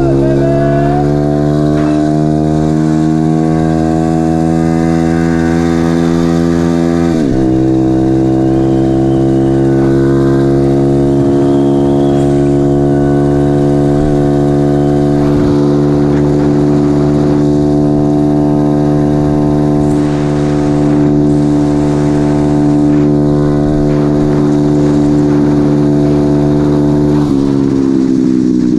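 Pit bike's single-cylinder engine running under way, its pitch climbing at first, dipping sharply and recovering about seven seconds in, then holding steady before dropping off near the end.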